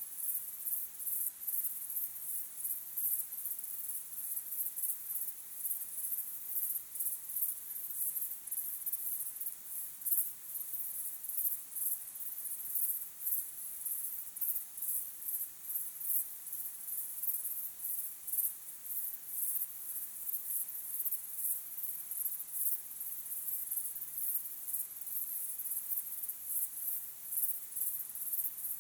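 Crickets chirping: a steady chorus of rapid, evenly repeating high-pitched pulses.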